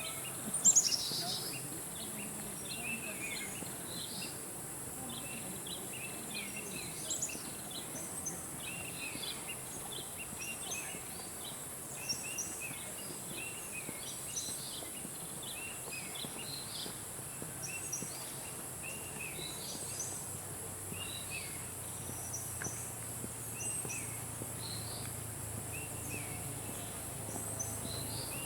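Many forest birds chirping and calling, short high notes coming several times a second, over a steady high-pitched insect drone. About a second in, one louder call falls in pitch.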